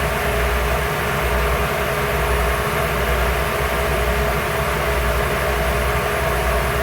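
Ship's steering gear pump no. 1, an electric motor driving a hydraulic pump, running steadily: a constant machinery hum with steady tones over a wide noise. It keeps running even with terminal 18 opened to simulate a phase failure.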